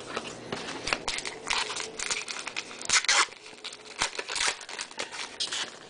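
Foil wrapper of a 2011 Gypsy Queen baseball card pack being torn open and crinkled by hand: a run of short crackling rustles.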